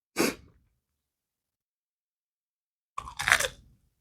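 Crunchy chewing of crisp fried food, close to the mouth, in two short bursts: one just after the start and a longer one about three seconds in.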